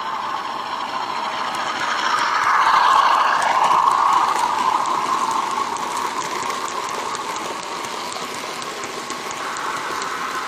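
OO-gauge model train running noise picked up by a small camera riding on the train: a steady rushing rumble of metal wheels on rail, swelling about two to four seconds in, with faint ticking above it.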